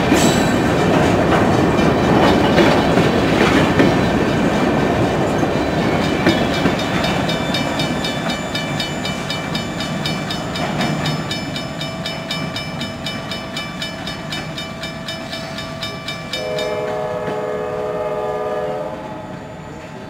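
Freight train's covered hopper cars rolling past, with rhythmic wheel clicks over the rail joints, fading as the last car goes by. Near the end a distant train horn sounds for about two seconds.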